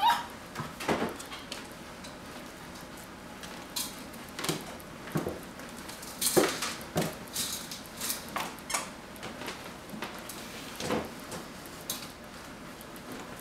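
Six-week-old Vizsla puppies moving and playing in their pen: irregular knocks, clicks and clatter of paws and toys, with a sharp sound right at the start.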